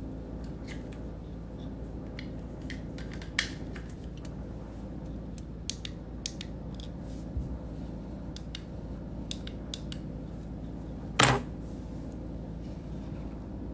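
Scattered faint clicks and light taps over a steady low hum, with one sharper click about three seconds in and a single loud knock about eleven seconds in.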